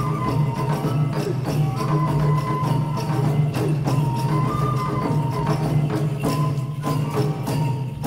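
Live Japanese folk music accompanying a koma odori horse dance: a stepping melody line over repeated sharp percussion strikes with a jingling, tambourine-like edge.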